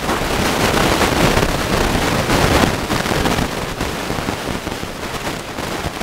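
Strong, gusty wind buffeting the microphone: a loud, uneven rush with a heavy low rumble that surges and eases.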